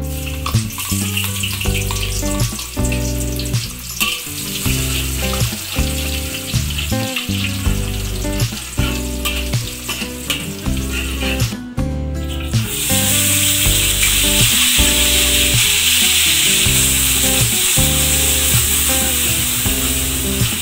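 Sliced shallots frying in hot oil in a wok, sizzling as they are stirred with a metal spatula. After a short break about twelve seconds in, a much louder, steady sizzle starts as a blended shallot, garlic and ginger paste fries in the oil. Background music plays throughout.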